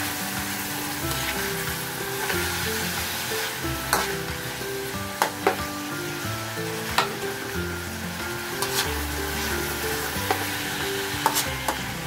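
Diced tomatoes, capsicum, onion and garlic sizzling in melting butter in an aluminium wok, stirred with a fork. There is a steady frying hiss and a few sharp clicks as the fork strikes the pan.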